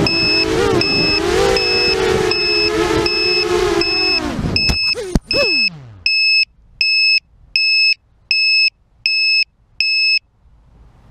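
Electric motor whine of a small FPV model aircraft in flight, with a short high electronic beep repeating about twice a second over it. About five seconds in, the motor sound cuts, there is a sharp click as the aircraft comes down, and the motor winds down in a falling whine. Then seven longer beeps sound at the same rate before stopping.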